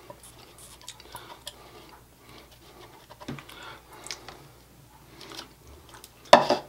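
Spatula scraping sour cream off a stand mixer's flat beater into its stainless steel bowl: faint scrapes and light ticks, with one sharp knock near the end.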